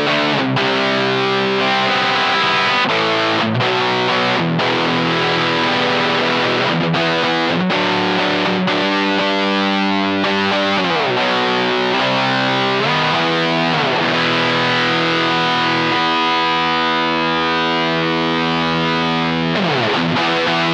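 Electric guitar played through a Suhr Riot high-gain distortion pedal: heavily distorted held notes and riffs, with a few quick pitch slides about ten seconds in and near the end.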